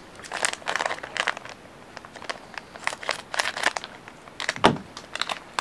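Foil trading-card booster pack crinkling in the hands as it is worked open, in a run of irregular crackles, with one louder thump about three-quarters of the way through.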